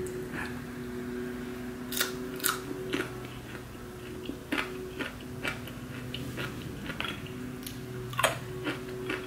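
A person biting and chewing crispy bacon: a series of sharp, crisp crunches, a cluster about two seconds in and the loudest near the end, over a steady low hum.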